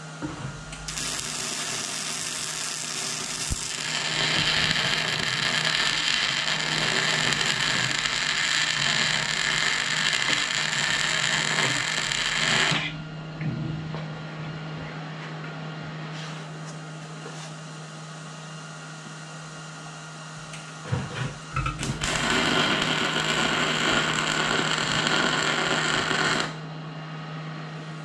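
Miller Millermatic 215 MIG welder laying two weld runs on steel plate: a steady crackling arc for about twelve seconds starting a second in, then a second, shorter run of about four seconds near the end. A steady low hum runs underneath.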